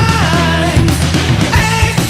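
Background rock music with a sung vocal line over a steady drum beat.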